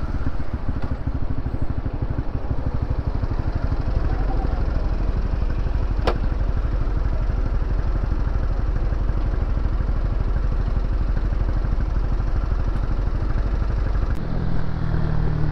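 Honda CB150R's single-cylinder engine running while riding in traffic, with a steady rush of wind and road noise. A single sharp click comes about six seconds in, and the engine note steps up near the end.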